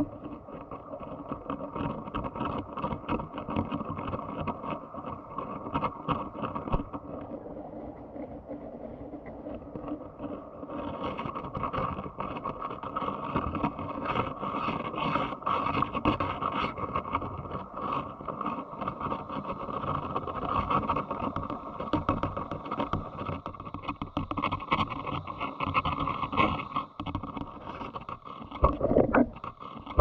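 Muffled rush of stream water heard underwater, with many small clicks and crackles throughout; it turns brighter and a little louder about eleven seconds in.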